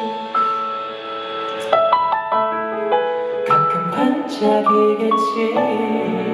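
Instrumental music led by piano, a run of single notes and chords with no singing.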